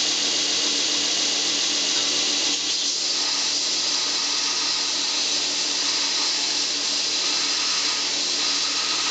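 Home-built 2x72-inch belt grinder running on its 2 hp electric motor, a steady motor-and-belt hum, with a piece of metal being ground on the belt at the platen: a hissing grinding rasp that sets in about two and a half seconds in.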